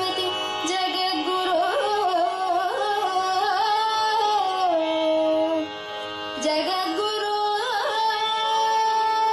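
Carnatic-style devotional song: a voice sings an ornamented melody with sliding pitch bends and long held notes, briefly softer near the middle.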